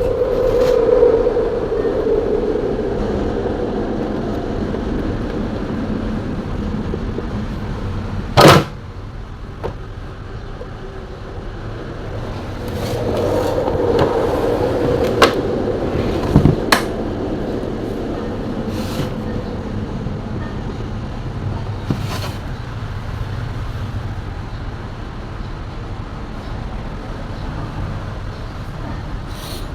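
Electric mixer grinder motor running with its noise fault: a steady hum whose tone fades and then comes back stronger about halfway through. There is a loud sharp click about eight seconds in and a few lighter clicks later. The noise persists with the suspected part removed, which points to a fault inside the motor unit.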